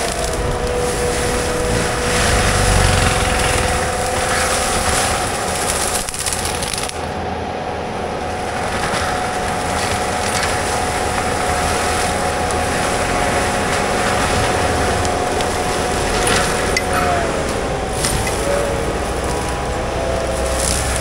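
Compact track loader running a forestry mulcher head into brush: engine noise with a steady high whine from the spinning mulcher drum. The whine wavers in pitch a few seconds before the end as the load changes.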